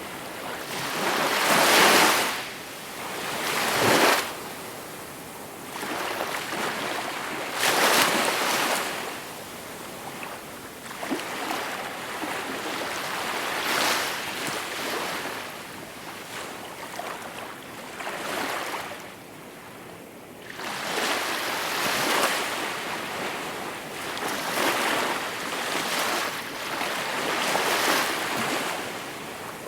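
Gentle sea waves breaking and washing up on the shore, the surf swelling and ebbing every few seconds. The strongest breakers come near the start, with a quieter lull about two-thirds of the way through.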